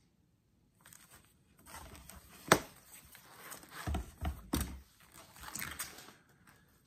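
Plastic card-sleeve pages and the cover of a ring binder rustling and flapping as they are handled and turned, with a sharp click about two and a half seconds in and a few dull thumps near the middle.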